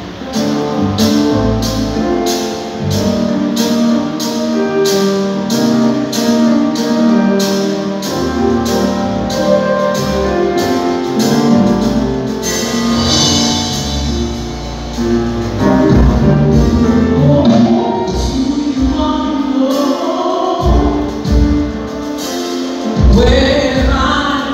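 Gospel worship music: singing over instrumental accompaniment, with a steady beat of about two strokes a second through the first half, and the voices coming forward in the second half.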